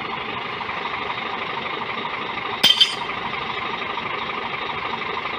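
Scania P440 XT truck's 13-litre six-cylinder diesel idling steadily. About halfway through there is a brief, sharp double click.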